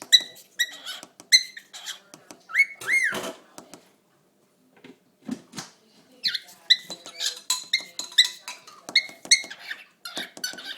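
Cockatiel chirping and squeaking in short, quick notes, with one longer whistle that rises and falls about three seconds in. After a brief lull the chirps come fast again, turning rougher and noisier near the end.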